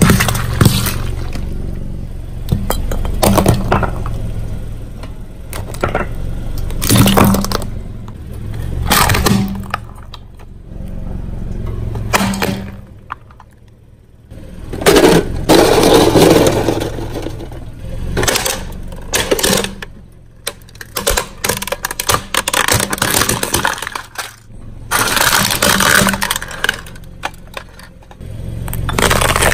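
Car tyre rolling over and crushing brittle objects: a string of sharp cracks and snaps over the low, steady running of the car's engine, with a dense burst of crackling about halfway through.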